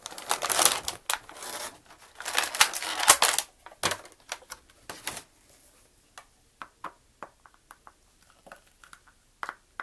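Plastic toy packaging crinkling and crackling as a figurine is pulled out of it, busiest in the first three seconds. After that come scattered small clicks and taps of hard plastic as the figure is handled.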